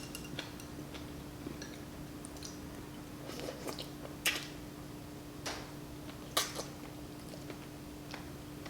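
Close-miked chewing of wonton noodle soup, with a few sharp wet mouth clicks spread through it over a steady low hum.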